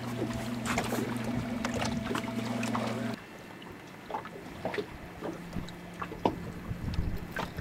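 A boat motor running with a steady hum. About three seconds in it drops abruptly to a quieter, lower hum, with scattered light knocks and splashes of water against the hull.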